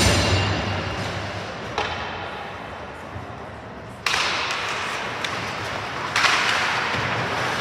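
Sharp knocks ringing in a large hard-walled rink, one right at the start and a smaller one about two seconds in, typical of a puck or sticks striking the boards. About four seconds in a wash of rink noise rises suddenly, and it steps up again near six seconds.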